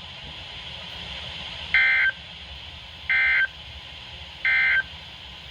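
Three short bursts of EAS/SAME digital data tones from a NOAA Weather Radio broadcast, about a second and a third apart. This is the end-of-message code that closes the warning, heard over steady radio hiss.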